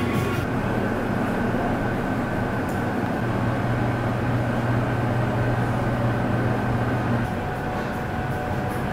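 Steady low mechanical rumble with a droning hum that swells for a few seconds in the middle, and a faint steady high tone above it.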